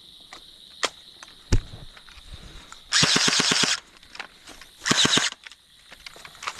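Airsoft gun firing two full-auto bursts of rapid, evenly spaced shots: a longer one about three seconds in and a shorter one about two seconds later. A couple of single sharp cracks come earlier, over a faint steady high tone.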